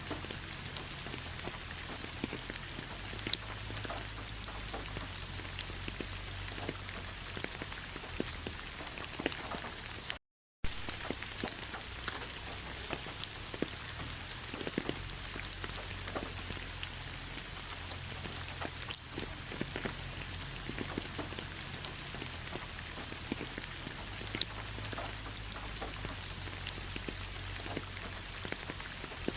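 Autumn rain falling on a bed of fallen leaves: a steady hiss of rain with many separate drops ticking on the leaves. All sound cuts out for a split second about ten seconds in.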